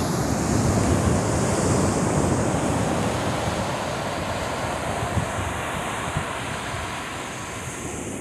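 Ocean surf breaking and washing up a beach, swelling about a second in and slowly easing off, with wind buffeting the microphone.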